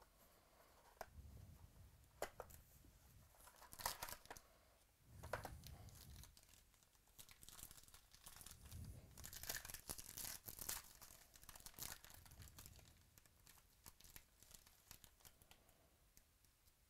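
Clear plastic wrap around a stack of trading cards being torn and crinkled open by hand, in short bursts of rustle with small clicks, with soft handling of a cardboard card box. Quiet overall.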